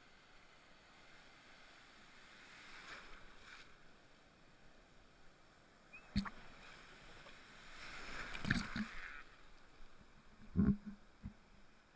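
Breaking surf washing over and around a camera held at water level: swells of muffled sloshing, with sharp knocks as the water hits the camera, the loudest near the end.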